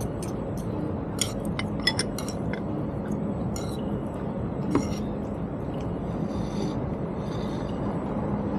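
Ceramic dishes and metal cutlery clinking and scraping against a bowl: a run of light clinks in the first few seconds and a sharper knock about five seconds in, over steady background noise with a low hum.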